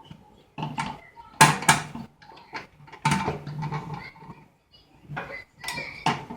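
Pressed-steel parts of a 1958 Tonka toy truck clinking and clattering as they are handled, in a string of short, sharp metallic knocks.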